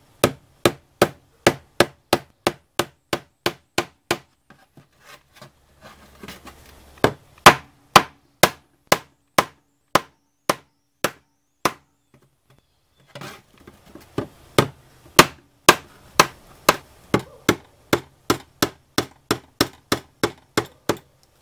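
Plastic-faced mallet striking the handle of a flat blade wedged against an ignition module's aluminum heat sink: a steady run of sharp knocks about two a second, with a pause around four seconds in and a shorter one about twelve seconds in. The blows drive the blade in to break the glue bonding the heat sink to the module.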